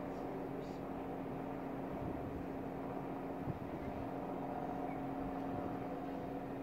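Steady low hum of a ship's engine with a constant drone, and one short knock about halfway through.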